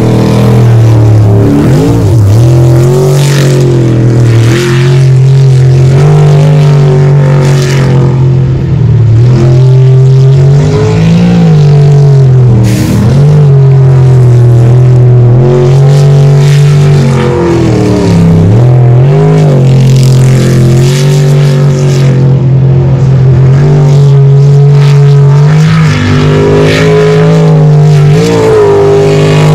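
Jet sprint boat's racing engine running at high revs, its pitch dipping and climbing back again several times as the throttle is lifted and reapplied.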